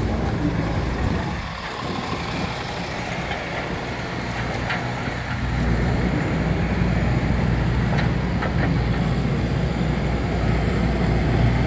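Street traffic: an articulated bus and cars driving by, a steady low engine and tyre rumble that grows louder about halfway through as cars pass close.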